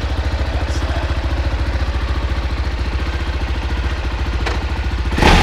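Husqvarna Vitpilen 701's big single-cylinder engine idling with steady, even firing pulses. A brief louder burst comes near the end.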